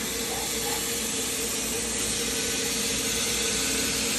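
Laser cutter running a cut in cardboard: a steady hiss of blowing air and fan noise with a faint steady hum underneath.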